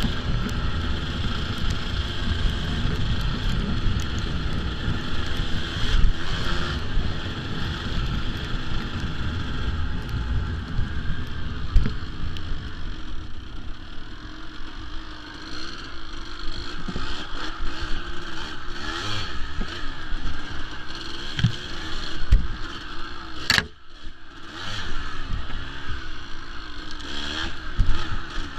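Kawasaki KDX200's two-stroke single-cylinder engine running under a rider on trail, its pitch rising and falling as the throttle is worked, with wind rumbling on the microphone. The throttle eases around the middle, and a sharp knock about two-thirds of the way through is followed by a brief lull.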